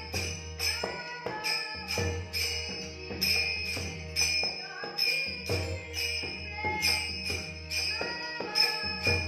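Devotional bhajan accompaniment: brass taal hand cymbals clash in a steady rhythm over deep strokes of a two-headed mridang (pakhawaj) drum and held notes on a harmonium.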